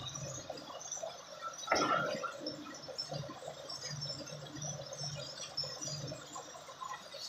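Water splashing and dripping over a low hum, with a louder rush of water about two seconds in.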